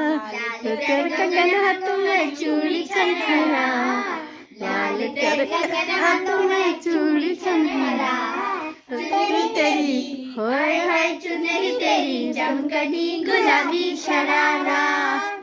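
A young girl singing a song into a handheld microphone, in phrases broken by a few short pauses.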